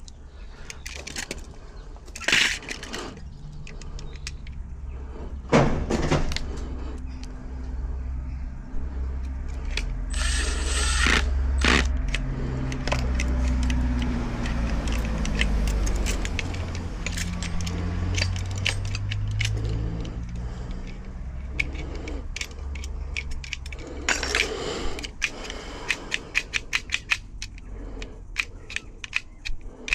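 Small metal parts of a stripped-down UPVC door gearbox and hand tools clicking and clinking as they are handled, with a few sharper knocks. A low rumble rises and falls underneath through the middle.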